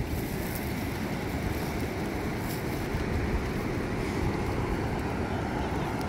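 Steady wind rumbling on the microphone over the continuous wash of surf breaking on a sandy beach.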